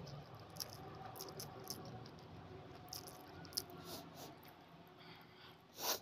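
Close-up chewing of rice and egg curry: soft wet mouth clicks and smacks, with fingers squishing and mixing rice on a plate. A louder short smack near the end.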